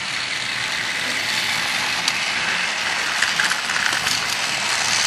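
Battery-powered Trackmaster toy trains running: a steady whir of small electric motors and plastic gears, with a few light clicks in the second half.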